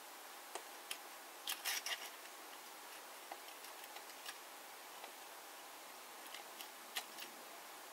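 Faint clicks and taps of a small die-cast toy truck being handled and turned on a tabletop road mat, with a quick cluster of clicks about a second and a half in, over a steady faint hiss.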